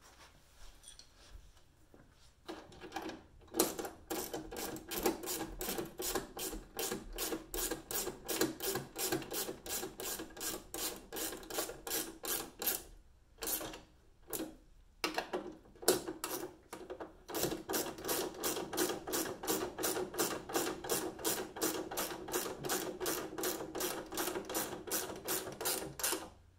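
Ratchet wrench clicking in quick, even strokes as nylock nuts are run down onto carriage bolts. The clicking starts a couple of seconds in and pauses briefly about halfway through.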